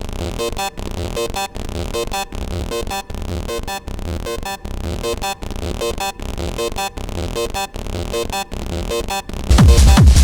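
Distorted Serum 2 synth sound playing a fast, repeating sequenced pattern with short regular gaps. About nine seconds in, a much louder, heavy hard-techno kick drum joins it.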